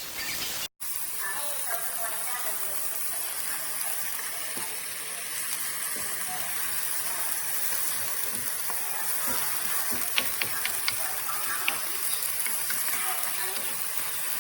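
Food frying in a pan: a steady sizzle with a few sharp pops about ten to twelve seconds in.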